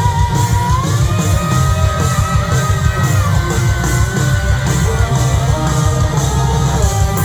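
Live rock band playing an instrumental break: a lead line, likely electric guitar, holds long notes and bends up into new ones over steady bass and drums.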